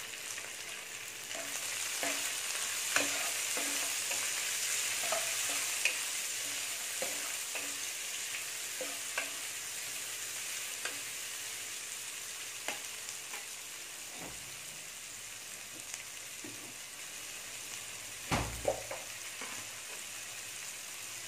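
Sliced onions sizzling in hot coconut oil in a non-stick kadai while a steel ladle stirs them, with scattered clicks and scrapes of the ladle on the pan. The sizzle is strongest in the first several seconds and then eases off; a single thump sounds about 18 seconds in.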